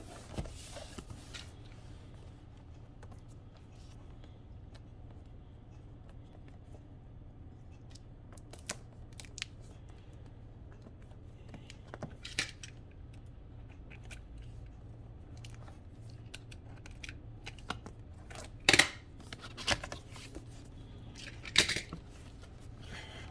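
Cardboard box and speaker packaging being handled: scattered light clicks and rustles, with a few louder short rustling scrapes about halfway through and near the end, over a steady low hum.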